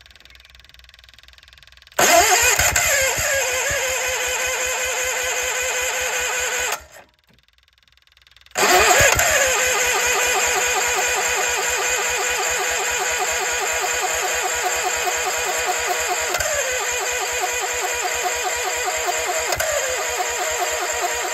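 Case 1816C skid steer's gas engine being cranked over by its new electric starter in two attempts, a short one of about five seconds and then a long one after a brief pause, turning over rapidly without settling into a run. The owner takes the failure to start for a flooded engine.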